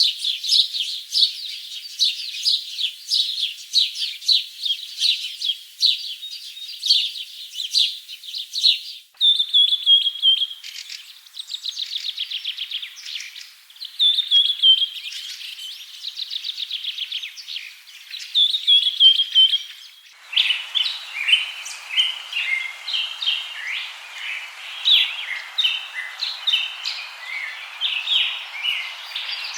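Songbirds singing in three spliced recordings: dense rapid chirping, then trilled phrases that fall in pitch, and, from about twenty seconds in, chirping over a steady background hiss.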